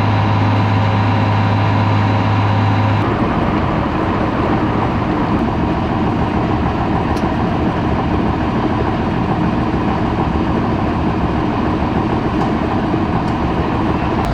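Farm tractor engine running steadily under way. About three seconds in, the sound changes abruptly from a steady hum to a rougher, noisier running.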